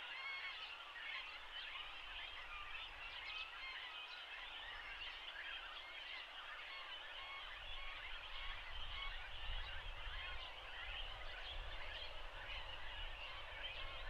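Great cormorant chicks begging for food: a dense chorus of many short, overlapping squeaky calls. A low rumble joins about halfway through.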